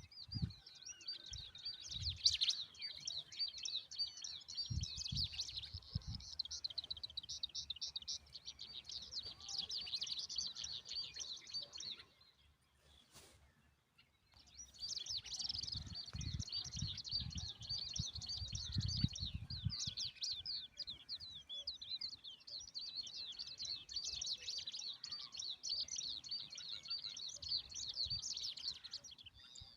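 Small birds chirping in a dense, rapid, high-pitched chatter, with a break of about two seconds midway and a few low bumps.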